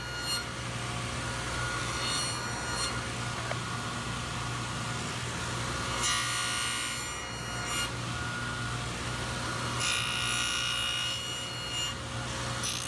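Table saw with a dado blade stack running steadily, cutting into the end of an oak board in four separate passes as a tenon is formed, with the board turned between passes.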